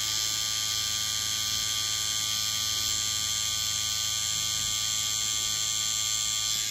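Tattoo machine with a cartridge needle running steadily, a continuous high buzz, as the needle shades fur texture into skin.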